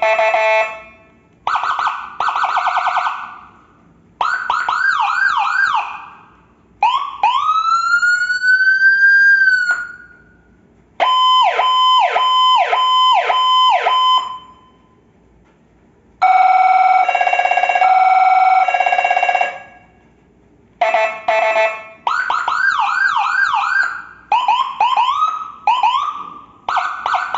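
Whelen siren module running through its different tones in separate bursts with short pauses between them: a fast warble, quick rising yelps, a slow rising wail, fast falling sweeps, and a two-note alternating tone. Near the end it switches rapidly between tones in short bursts.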